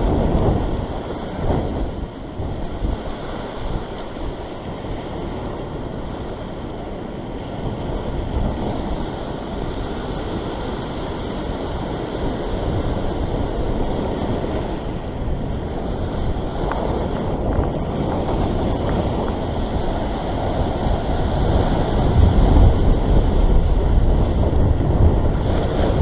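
Sea waves washing and breaking over a rock ledge, with wind buffeting the microphone. The rumble grows louder for a few seconds near the end.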